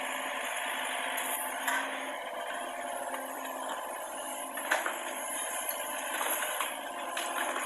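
Hitachi mini excavator running steadily while it moves building rubble, with a couple of short sharp knocks, one about two seconds in and a louder one near five seconds in.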